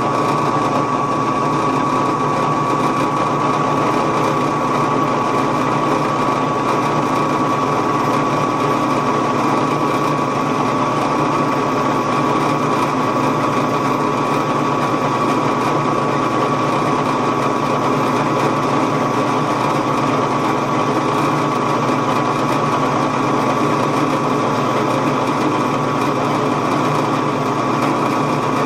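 Drill press running steadily, its twist bit boring down into the end of a twisted 3/8-inch square mild steel bar, with a steady whine throughout.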